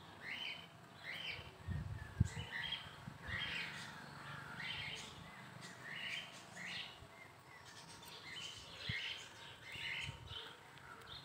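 Birds chirping, short high calls repeating about once or twice a second, with a brief low thump about two seconds in.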